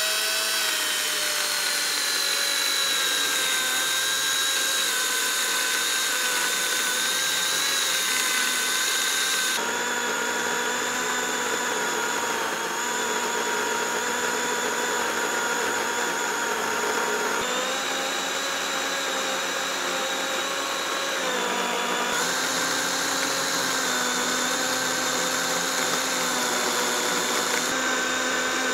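DeWalt cordless electric chainsaw ripping lengthwise through a long wooden beam: a steady motor whine with the noise of the chain cutting. It spins up at the start, and the pitch steps abruptly up or down a few times.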